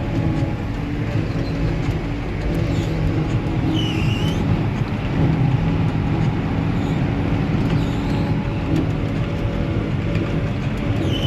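Heavy diesel farm machinery engines running steadily under load, a continuous low hum, with a brief high squeak about four seconds in.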